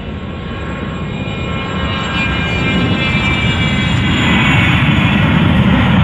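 A Cessna 501 Citation business jet's twin Pratt & Whitney JT15D turbofans at takeoff power during the takeoff roll. The engines give a whine of several high tones over a low rumble, growing steadily louder as the jet rolls closer.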